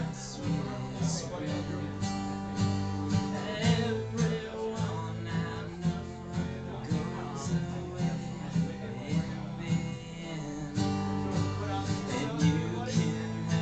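Solo acoustic guitar playing an instrumental passage, strummed chords over ringing low notes, with no singing.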